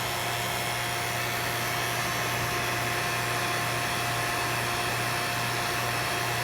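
Oil-sealed vacuum pump running steadily, a constant hum with a few steady tones over a hiss, as it pulls a vacuum on a jar of water boiling at room temperature and draws the water vapour into its oil.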